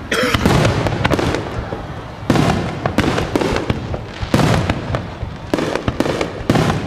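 Aerial fireworks shells bursting, a heavy bang about every two seconds that dies away, with crackling between the bangs.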